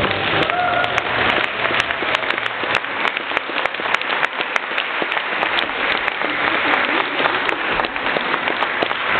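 Audience applauding in a hall, a dense patter of many hands clapping, with a brief single voice-like call about half a second in.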